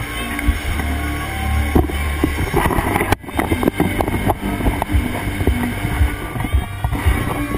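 The show's amplified sound design: a deep, steady rumble with some held tones, joined about two and a half seconds in by dense crackling and clicking.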